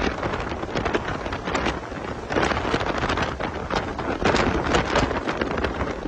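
Wind buffeting the microphone in gusty, irregular thumps, over the steady road noise of a moving vehicle.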